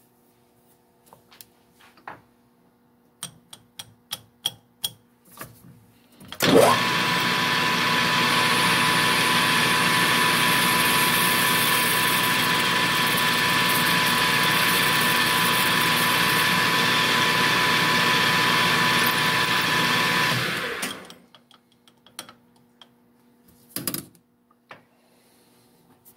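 Light clicks and taps of a drill bit being set, then a metal lathe starts with a quick rising whine about six seconds in and runs at speed with a steady high whine while a small drill bores into a spinning brass part. It winds down and stops about fifteen seconds later, followed by a few light taps.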